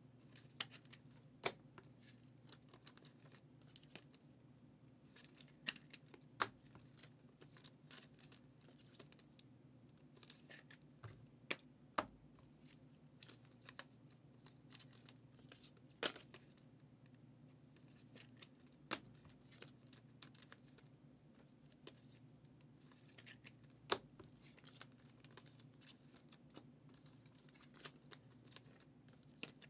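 Trading-card pack wrappers being torn and crinkled and cards handled on a tabletop, heard as scattered sharp clicks and rustles over a faint low steady hum.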